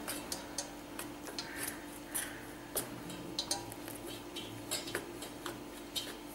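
A spoon clinking and scraping against a stainless steel bowl while stirring rice flour mixed with hot water, in scattered light ticks.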